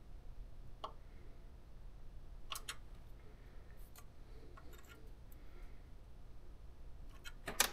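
A few faint metallic clicks from hand tools working the valve lash adjuster and locknut on a GY6-type scooter engine, with a quick run of sharper clicks near the end.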